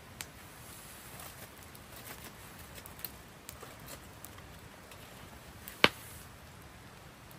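Scattered light ticks and taps over a low background, then one sharp knock or crack about six seconds in, much louder than the rest.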